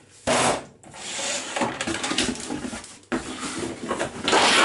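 Plastic fischertechnik base plates and print bed being slid and scraped across a wooden tabletop, with rubbing and handling noise and a louder scrape near the end.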